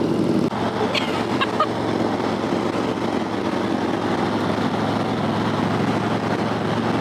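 Motorcycle riding along, recorded from the bike: a steady engine hum that gives way, about half a second in, to a steady rush of wind and road noise over the engine's low drone.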